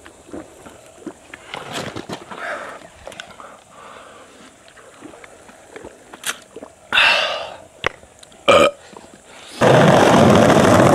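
A man drinking from a plastic bottle lets out a loud belch about seven seconds in, then a second, shorter one. Near the end a loud, steady rumble of skateboard wheels rolling over rough asphalt starts.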